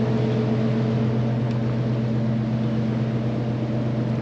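Boat engine running steadily, an even low drone that holds its pitch.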